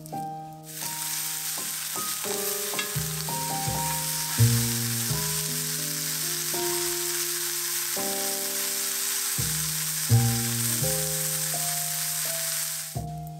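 Scallops sizzling as they sear in a nonstick frying pan, only the surface lightly browned: a steady hiss that starts just under a second in and cuts off near the end. Soft piano music plays underneath.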